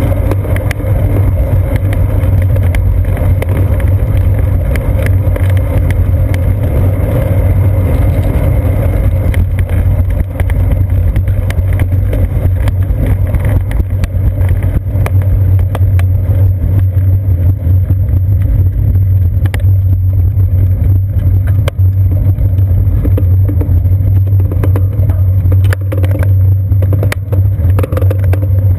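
Riding noise of a bicycle on a concrete sidewalk, picked up by a GoPro on the seat post: a steady, loud low rumble of the rolling bike, with irregular knocks and rattles as it crosses the joints between the concrete slabs.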